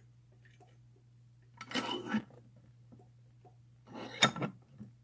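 Handling noise from a padlock clamped in a bench vise and the steel picks and tension tool working it, just after the lock has been picked open: a brief rustle nearly two seconds in, and a sharp click about four seconds in.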